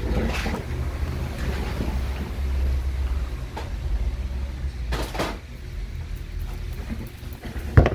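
A steady low rumble, with a few knocks and rustles of repair parts and tools being handled, the loudest about five seconds in.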